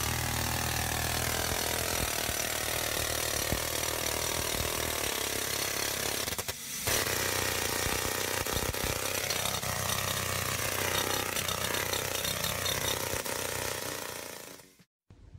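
Pneumatic jackhammer hammering into concrete and masonry, dropping out briefly about six and a half seconds in and then running on until it stops near the end.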